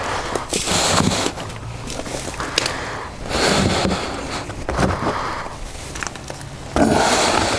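Cast aluminum bars and metal molds being handled: a series of short scrapes and knocks of metal on metal, with a few sharp clicks.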